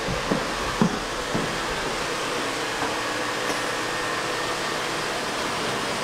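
Canister vacuum cleaner running with a steady whooshing drone, with a few short knocks in the first second and a half.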